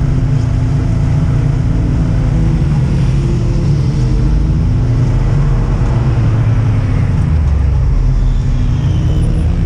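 Side-by-side (SSV) off-road racer's engine running at low speed, picked up by a camera mounted on the vehicle: a steady, loud drone with a slightly wavering pitch.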